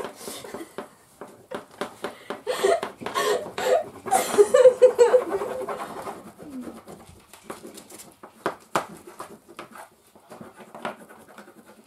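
A high-pitched voice making wordless vocal noises, loudest in the middle few seconds and ending in a short falling slide, over the scratching and tapping of wax crayons on paper on a tabletop.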